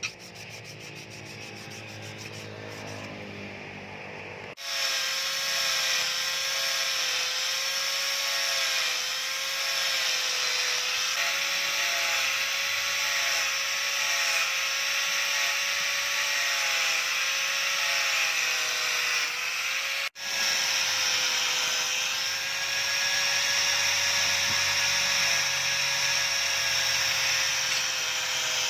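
A small high-speed power tool running with a steady whine and hiss. It starts suddenly about four and a half seconds in, cuts out for an instant about twenty seconds in, and runs on.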